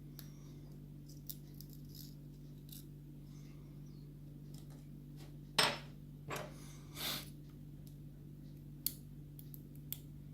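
Small metal clicks and scrapes of lock pins and springs being taken out of a disassembled pin-tumbler lock, with one sharper click about halfway through and two short rattles just after it.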